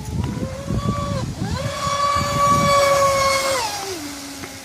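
Traxxas Spartan RC speed boat's brushless motor on 6S LiPo power whining at speed. The high whine eases for a moment about a second in, climbs again and holds, then drops sharply near the end as the throttle comes off. A low rumble runs underneath for the first few seconds.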